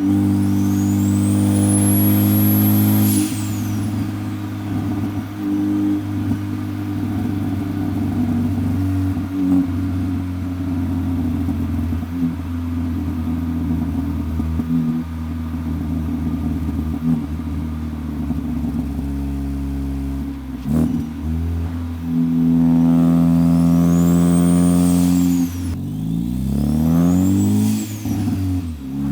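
Engine of a big-turbo Ford Focus ST running steadily at a constant pitch for most of the time. A high whistle rises and falls near the start and twice near the end. Near the end the engine pitch climbs and drops as it revs.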